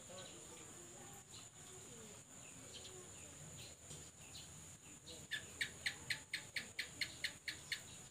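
A rapid series of about a dozen short, sharp, high chirps, about five a second, begins about five seconds in. It sits over a faint, steady, high-pitched insect-like whine.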